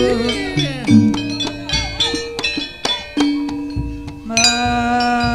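Live jaranan accompaniment music: struck metal instruments ringing in held notes over sharp drum and percussion strokes.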